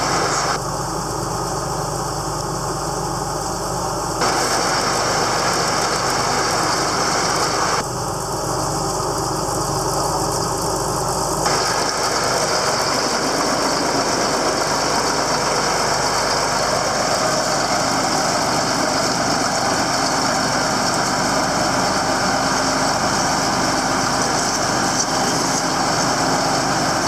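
John Deere farm tractor's engine running steadily as the tractor is driven on a freshly patched tyre. The higher hiss over the engine drops away twice for a few seconds, about half a second and eight seconds in.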